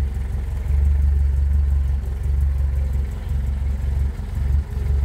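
Rover 2000 SC's four-cylinder engine ticking over steadily, a low even rumble with small swells in level.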